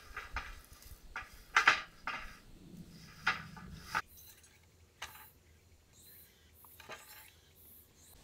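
Burlap fabric rustling and scraping as a liner is pushed and folded into a metal wire basket, with light clinks from the wire frame; the handling strokes are irregular and sharp, then about four seconds in it goes quieter with only a few faint clicks.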